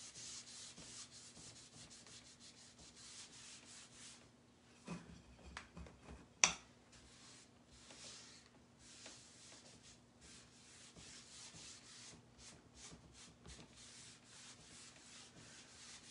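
A wax brush scrubbing dark wax into a chalk-paste-painted wooden board in quick back-and-forth strokes. The strokes pause around the middle, where there are a few soft knocks and one sharp click, then start again.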